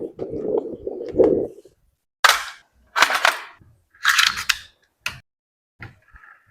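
Toy P90 gel blaster: a low buzzing with clicks, then three sharp shots about a second apart, followed by a couple of lighter clicks.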